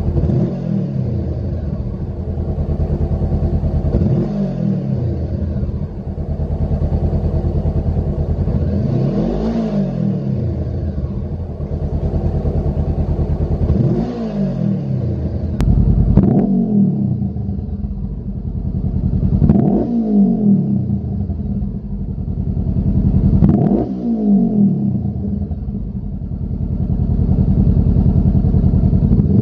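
Honda CBR500R's 471 cc parallel-twin engine idling on the stand with about seven short throttle blips, each rev rising and falling back to idle. It is heard first through the stock silencer and, from partway through, through a Lextek SP2 full-system exhaust, somewhat louder.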